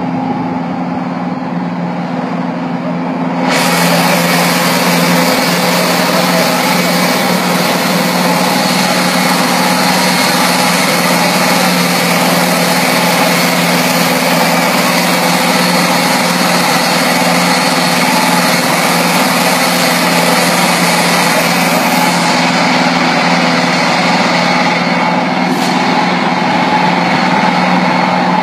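Scania truck's diesel engine running at a steady speed. A loud rushing noise joins it suddenly a few seconds in, and its highest part fades out near the end.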